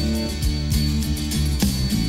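Music: an instrumental stretch of a song between sung lines, with guitar and drum hits.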